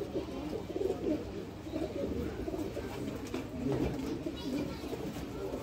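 Several domestic pigeons cooing at once, their low wavering coos overlapping without a break.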